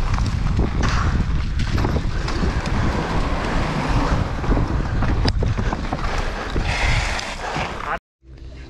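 Wind buffeting a helmet-mounted camera's microphone during a fast mountain-bike descent on a dirt trail, over a steady low rumble from the tyres and frequent knocks and rattles from the bike. The sound cuts off suddenly near the end.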